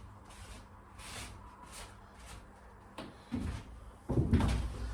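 Soft rubbing strokes of excess construction adhesive being wiped off a timber batten, then a sharp click and a run of louder wooden knocks and thumps over the last second as the timber is handled against the frame.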